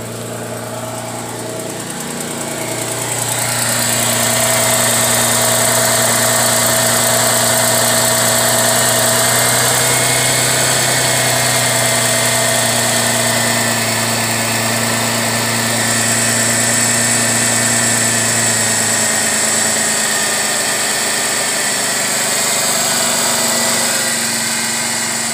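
2004 Ford Mustang engine idling steadily with its newly fitted alternator charging, growing louder about three seconds in.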